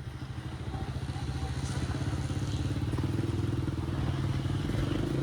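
A motor vehicle's engine running with a fast, even pulse, growing steadily louder over the first few seconds and then holding.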